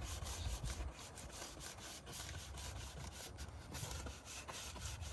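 Microfiber rag rubbing back and forth over plastic UTV trim in quick repeated strokes, about four a second, working in trim restorer.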